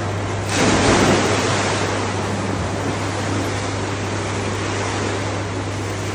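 A child jumping into an indoor swimming pool: a splash about half a second in, then churning, sloshing water that slowly settles, over a steady low hum.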